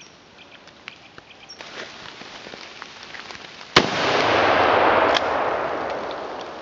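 A single hunting-rifle shot fired at a wild boar, a sharp crack nearly four seconds in, followed by a couple of seconds of loud rushing noise that swells and then fades.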